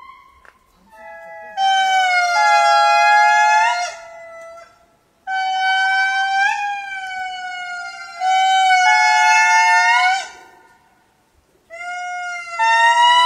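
Lemurs calling in chorus: several wailing, pitched voices at once, holding long notes that step upward at the ends of phrases. The calls come in phrases of a few seconds, with a short break about ten seconds in.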